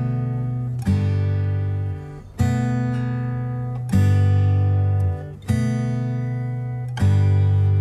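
Background music: acoustic guitar strumming chords, a new chord struck about every one and a half seconds and left to ring out.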